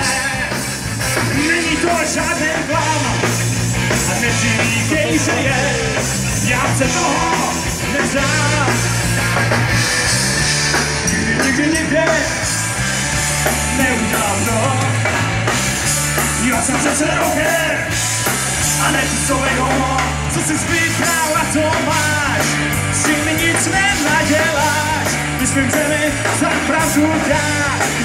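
Live rock band playing loud and without a break, with electric guitars and a drum kit.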